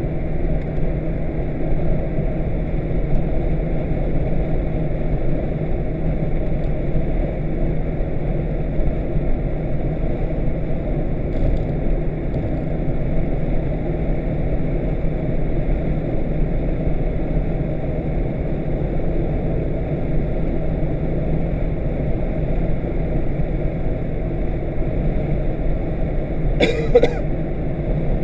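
Car cabin noise while driving: a steady low rumble of engine and tyres on the road. One brief sharp sound cuts in near the end.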